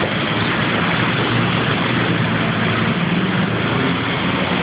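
Steady hum and rush of a running motor vehicle engine, with a low drone that holds even throughout.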